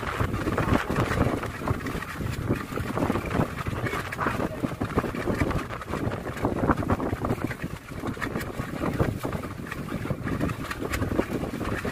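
Wind buffeting the microphone, with a continuous wash of sea water against a small wooden boat's hull.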